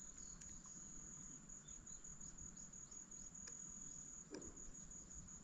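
Insects calling outdoors: one steady, high-pitched tone that does not break, with a few soft ticks over faint background hiss.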